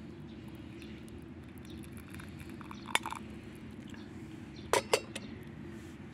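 Glass clinking: one sharp clink about three seconds in, then two louder clinks in quick succession near five seconds, over a steady low background noise.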